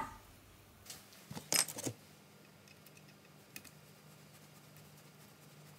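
A few light metallic clinks and clicks of small steel parts being handled, bunched about a second and a half in, with a single tick a little later. A faint steady low hum runs underneath.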